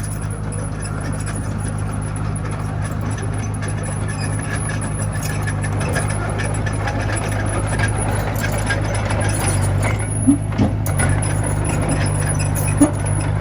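Komatsu mini bulldozer's diesel engine running steadily with a constant low drone, over a faint clatter, with two sharp knocks about ten seconds in and another near the end.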